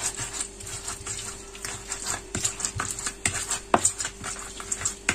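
A pestle crushing and grinding fried chillies and shallots for sambal in an earthenware cobek mortar: irregular wet knocks and scrapes, with a few sharper knocks.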